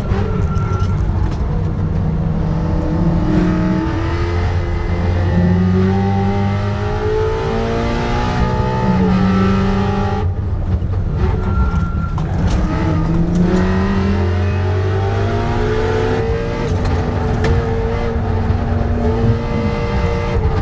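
Car engine heard from on board during a hard autocross run, revs climbing and dropping several times as the driver accelerates, shifts and lifts between corners.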